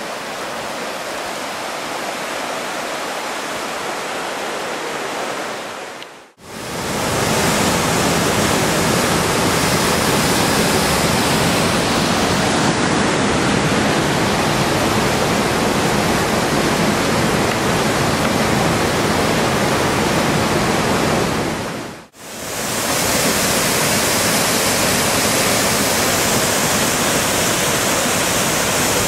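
White water of a fast river running over rapids and a small waterfall: a steady, loud rush. It breaks off for a moment twice, about six and twenty-two seconds in, and is louder after the first break.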